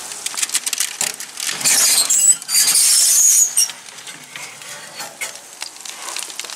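A hot baking tray of fish and vegetables sizzling as it is pulled from the oven, with clinks and knocks of metal and glass. A louder hiss runs through the middle, from about one and a half to three and a half seconds in.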